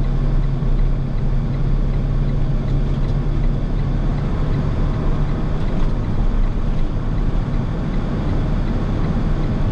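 Delivery truck's engine running with road noise, heard from inside the cab as it drives through snow. A low engine drone holds steady for the first few seconds, then shifts in pitch.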